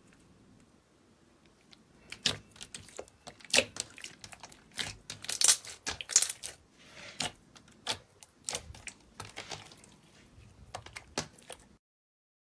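Hands pressing and squeezing green clear slime, making a fast, irregular run of sharp crackling clicks and pops that starts about two seconds in. It cuts off suddenly near the end.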